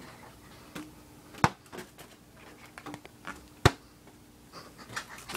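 Handling noise: scattered light clicks and knocks, two sharper ones about a second and a half in and near four seconds in, over a faint steady hum.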